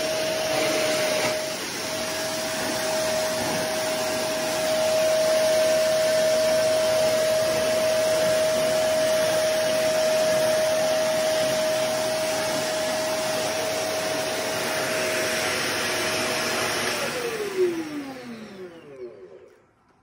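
Black Goblin ECV002B-19 cylinder vacuum cleaner running on carpet, a loud rushing suction noise with a steady motor whine. Near the end it cuts off, and the whine falls in pitch as the motor winds down.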